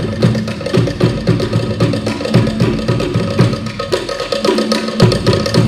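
Traditional Cook Islands drumming, led by hard wooden slit-drum (pate) strikes in a fast, driving, steady rhythm.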